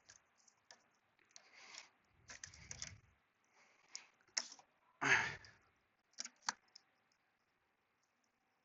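Hands handling parts and packaging: scattered clicks, taps and short rustles, with a louder rustle about five seconds in.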